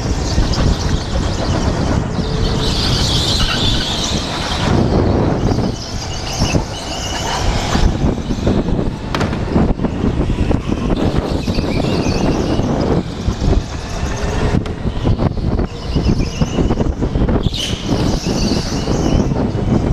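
Go-kart racing heard from the driver's helmet: steady rushing wind and running noise, with kart tyres squealing through the corners, most strongly a few seconds in and again near the end.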